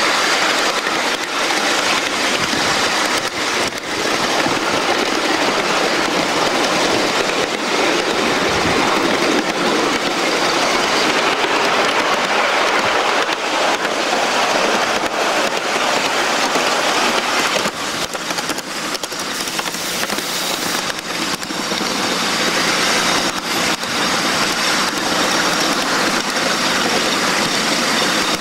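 Ride-on live-steam Shay locomotive and cars running along the track: a steady, loud rushing rumble of wheels on rail, with frequent irregular clicks as the wheels pass over rail joints. It eases off a little about two-thirds of the way through.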